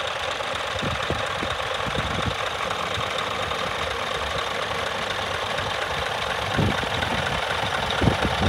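Scania G440 truck's diesel engine idling steadily. A few low thuds stand out near the end.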